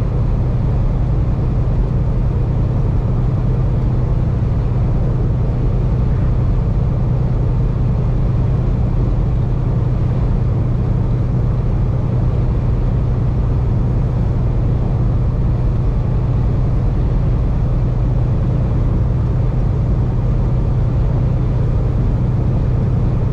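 Steady drone of a semi-truck cruising at highway speed, heard inside the cab: engine hum and tyre and road noise. A strong low hum, even and unchanging throughout.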